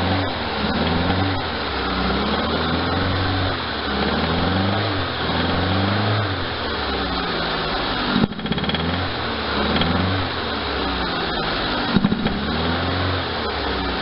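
Double-overhead-cam car engine running while the throttle is blipped again and again, its pitch rising and falling every second or two, with a sharp click a little past the middle and another near the end. It is being checked for a knock, and no clear knock is heard now that it is warm.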